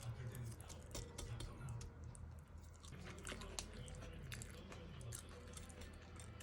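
Close-up eating sounds: chewing and biting with scattered small clicks and taps.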